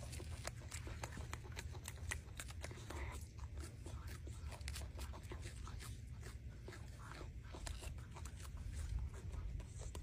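Golden snub-nosed monkey eating a mandarin orange: faint, irregular small clicks and crackles of chewing and handling the fruit, over a low steady rumble.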